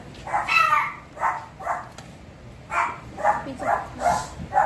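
A dog barking, about eight short high-pitched yaps in two runs, the second starting a little under three seconds in.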